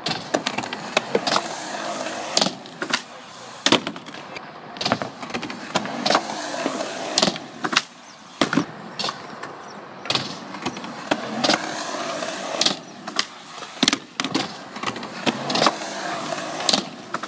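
Skateboard wheels rolling over hard skatepark ground, with repeated sharp clacks of the board popping and landing, spread unevenly throughout.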